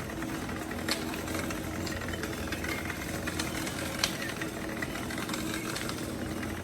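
A steady engine hum with a low rumble and a held mid-pitched tone, broken by two sharp clicks, about a second in and about four seconds in.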